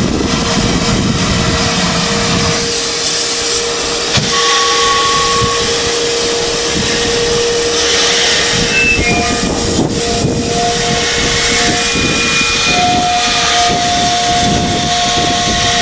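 GWR Castle class steam locomotive 5029 Nunney Castle standing at the platform, hissing steam steadily, with a steady whistling tone running through the hiss.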